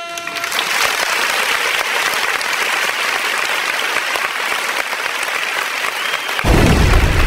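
Audience applauding, a dense steady clapping that starts just after a high pitched tone cuts off. A deep rumble joins it near the end.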